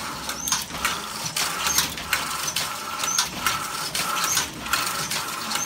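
Pedal-powered rapier loom of the kind built for Harris Tweed weaving, running in a steady rhythm of mechanical clacks, about two a second, as the rapier and beater work back and forth, with brief high squeaks from the moving parts.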